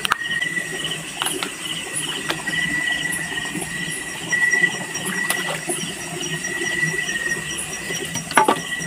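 A steady insect chorus: a high, unbroken whine with a rapid, evenly pulsed chirping above it. A few sharp knocks stand out, the loudest near the end.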